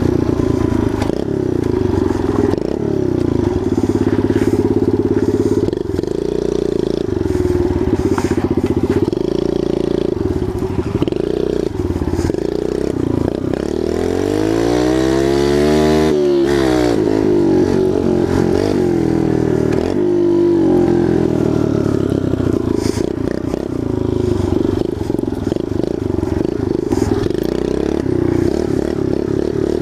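Kawasaki KLX 110 pit bike's small air-cooled four-stroke single running under way over dirt, heard from the rider's position. Around the middle it revs up, its pitch climbing and then falling back, before it settles to a steady run again.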